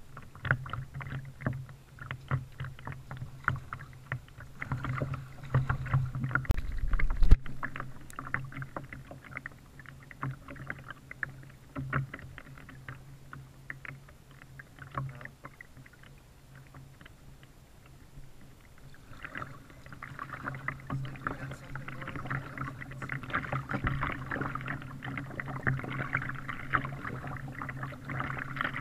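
Kayak paddling heard from a camera on the bow: water dripping and splashing off the paddle and lapping against the plastic hull, with one loud knock about seven seconds in. The splashing eases off in the middle, then grows thicker again for the last third. A steady low hum sits underneath.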